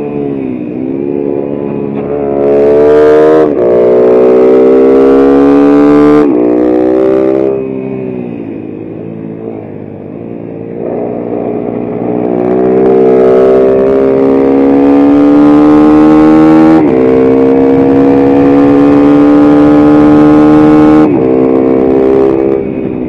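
Mini racing motorcycle's engine at full throttle, heard from the rider's helmet camera, revving up through the gears. The pitch climbs, drops at an upshift about three and a half seconds in and climbs again, then falls away as the rider backs off around six seconds in. It picks up again around eleven seconds, shifts up near seventeen seconds and dies down near the end as the bike slows for a corner.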